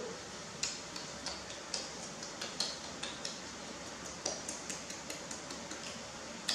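Baby monkey chewing small pieces of jujube fruit: irregular sharp smacking and crunching clicks, about two or three a second.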